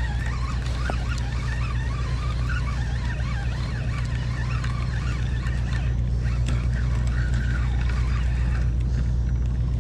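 Steady low engine drone from ships on the river, with the whir and chatter of a spinning reel being cranked as a fish is reeled in.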